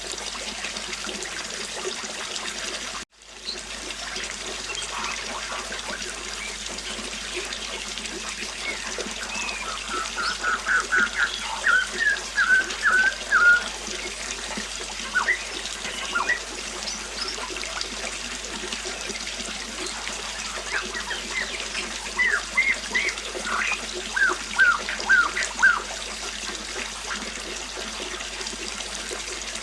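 A river flowing steadily, with a songbird chirping over it in two bouts of quick, short notes, the first about ten seconds in and the second about twenty-two seconds in. The water sound drops out for an instant about three seconds in.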